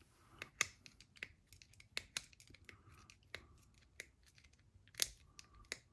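Faint, irregular sharp clicks and light scraping of small metal RC car parts and a hex driver being handled while fitting a motor mount onto an electric motor.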